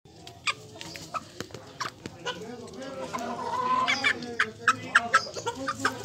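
Aseel chickens clucking: a string of short, sharp calls that come thicker and louder in the second half.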